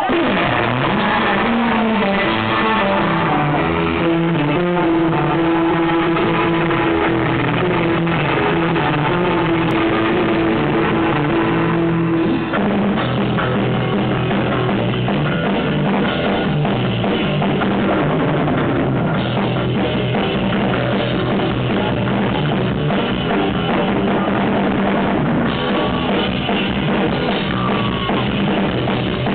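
Surf rock band playing live: electric guitar over a drum kit, loud and continuous. About twelve seconds in, the music switches abruptly to a new section.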